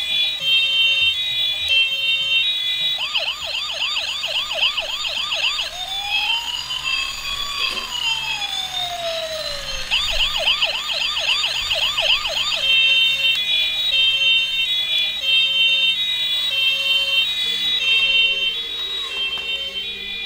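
Electronic siren of a battery-powered toy fire truck cycling through its patterns: a fast alternating two-tone beep, then a rapid warbling yelp, a slow wail rising and falling, the yelp again, and the two-tone beep once more.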